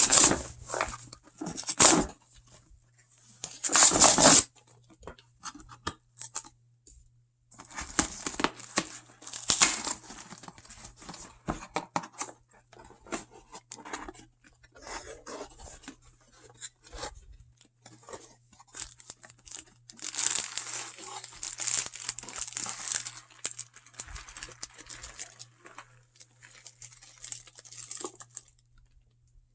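Plastic shrink-wrap being torn off a boxed board game and crumpled. There are a few sharp rips near the start, then long stretches of crinkling and rustling.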